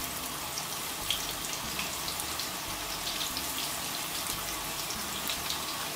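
Pieces of bonito fish frying in hot oil in a pan: a steady sizzle with occasional small crackles.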